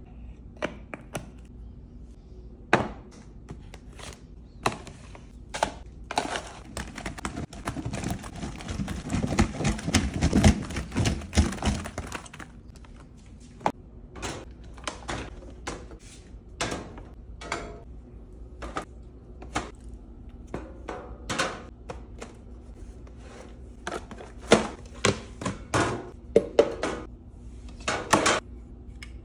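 Many separate knocks, taps and clunks of plastic bottles, jugs and containers being handled and set down on a metal-mesh rolling cart, with a denser continuous stretch of noise about six to twelve seconds in.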